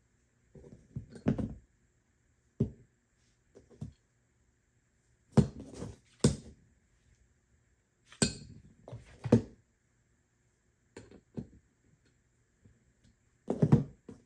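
Irregular knocks and clinks of metal bicycle crankset parts being handled and set down on a work surface, about ten in all, with the loudest near the middle and near the end.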